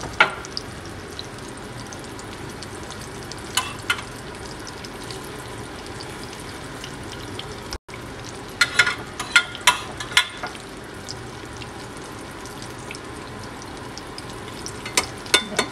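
Grilled eggplants topped with ground beef frying in oil in a nonstick skillet: a steady sizzle. A few sharp clicks and scrapes of a metal spoon against the pan come about halfway through and again near the end.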